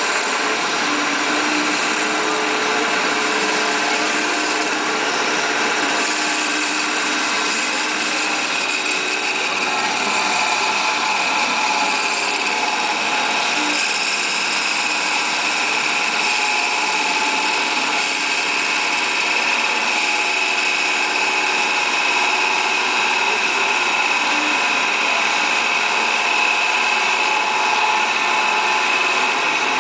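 Tormach 1100 CNC mill with a Duality lathe attachment turning a wooden spindle: a steady high machine whine over the hiss of the tool cutting the spinning wood.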